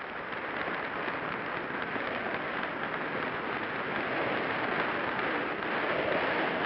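A large audience applauding, dense and sustained, growing slightly louder.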